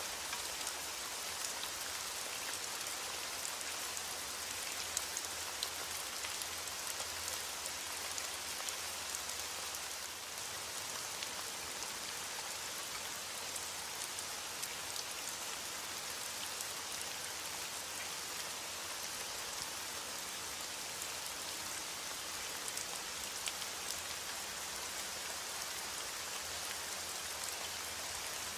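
Heavy rain falling steadily on a window pane, an even hiss scattered with small sharp ticks.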